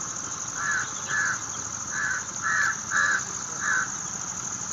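A crow cawing six times in quick succession, short harsh caws, over a steady high-pitched insect drone.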